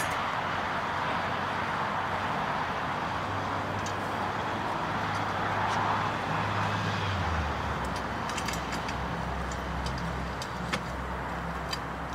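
Fuel-fired foundry furnace burner running with a steady rushing noise, a low hum underneath that drops in pitch about seven seconds in. A few light clicks come in the second half.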